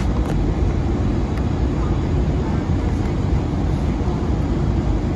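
Steady in-flight cabin noise of an Airbus A320 heard beside its CFM56-5B engine: a low, even drone of engine and airflow noise.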